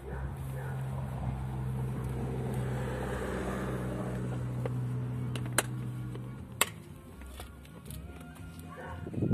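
A steady motor hum with an even, constant pitch that stops about six and a half seconds in, with two sharp clicks just before it stops.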